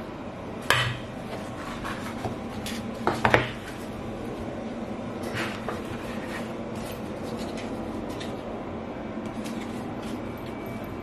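Clatter of a hinged turnover press and kitchen tools handled on a counter: a few sharp clacks, the loudest about a second in and a quick pair about three seconds in, with lighter taps in between, over a steady low hum.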